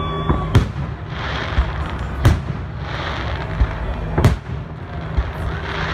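Aerial firework shells bursting: three loud, sharp bangs about two seconds apart over a steady noisy background.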